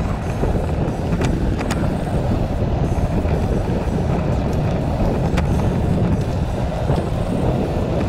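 Steady rumbling noise of riding a bicycle along a paved path, from tyres, frame rattle and wind on the camera's microphone. A few sharp clicks or rattles stand out, two close together about a second in and another past the middle.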